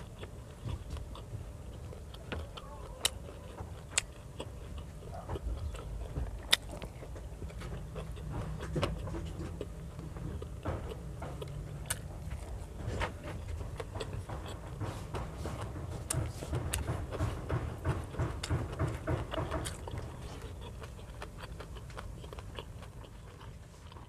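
Close-miked chewing and biting of rice and fried fish, with many sharp wet mouth clicks. The chewing comes thickest in the second half and fades away near the end.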